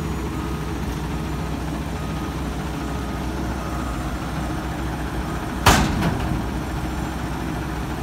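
American LaFrance front-loader garbage truck's diesel engine idling steadily, with one sudden sharp burst of noise about three-quarters of the way through.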